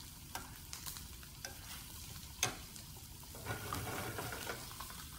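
Rockfish fillet sizzling skin side down in hot oil in a pan on medium heat. A few sharp clicks sound over the sizzle, the loudest about halfway through.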